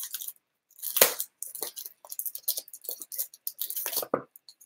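A long gift box holding a pen being handled and opened by hand: a string of small clicks, taps and scrapes, the loudest about a second in.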